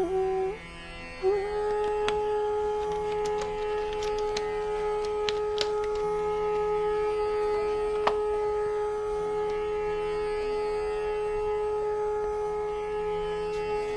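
Instrumental Indian classical background music: a single long note on a wind instrument, held steady from about a second in, over a soft pulsing drone, with a few faint clicks.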